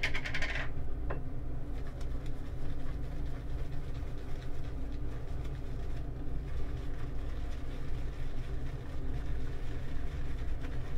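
Omega boar-bristle shaving brush being swirled on a shaving-soap puck to load more soap, because too little was loaded and no lather is building, over a steady low hum. There is a short clatter right at the start.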